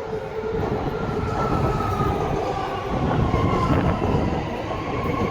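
Six-car BART train pulling into the station: a steady rumble of wheels on rail under a high whine that slides slowly down in pitch, then holds steady near the end.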